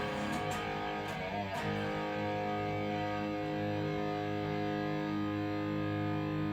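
Distorted electric guitar through a Marshall DSL40CR tube combo amp on its overdrive channel: a chord struck a couple of times in the first second and a half, then left ringing with long, steady sustain over the amp's hiss.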